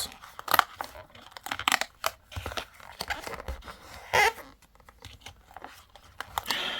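Cardboard and paper packaging tearing and crinkling in a series of short scrapes and clicks as an advent calendar door is opened, with one louder rip about four seconds in.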